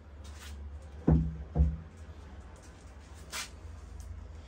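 Two dull knocks about half a second apart, about a second in: bonsai pots being handled and set down while the trees on the turntable are swapped. A short rustle follows a little after the middle, over a low steady hum.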